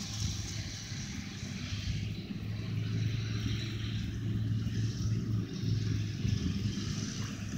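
A motor running steadily, a low hum with a faint hiss over it.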